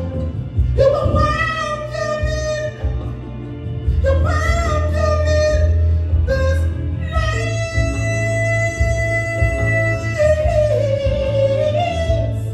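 A man singing a solo into a microphone over a steady low instrumental accompaniment, holding long notes with vibrato. The longest note is held for about three seconds in the second half.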